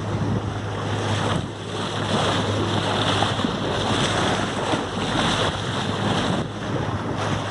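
Wind buffeting the microphone over the rush of choppy sea water around a small boat, with a steady low engine hum underneath.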